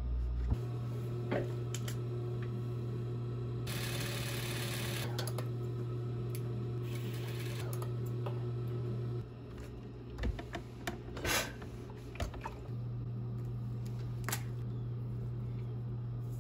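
Consew industrial sewing machine, its motor humming steadily while it runs two stretches of stitching as a fast needle rattle, the first about a second and a half long and the second shorter. After that the hum stops and there are only a few short clicks and handling noises.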